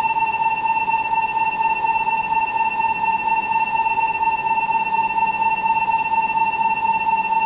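Shinkansen platform departure bell ringing as one steady electronic tone, signalling that the train is about to leave.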